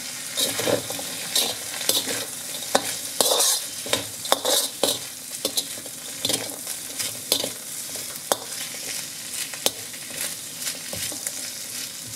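Carrot, potato, onion and chicken sizzling in oil in a hot wok while a metal slotted turner stirs and tosses them, scraping and clinking against the pan in irregular strokes over a steady frying hiss.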